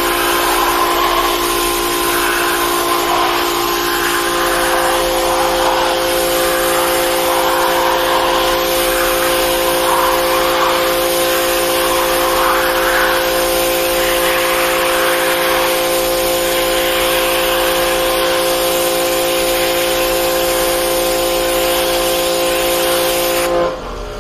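Pressure washer running steadily, with a machine hum under the hiss of its high-pressure jet blasting grime off a metal floor plate. The spray and machine sound drop off near the end.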